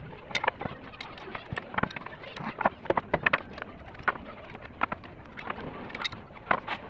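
Wooden blocks and battens knocking and clattering as they are handled and set down on a concrete floor: a string of short, irregular knocks.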